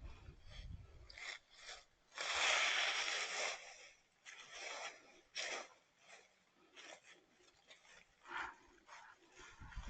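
A series of short scraping and rubbing noises, the loudest a longer scrape of about a second and a half about two seconds in.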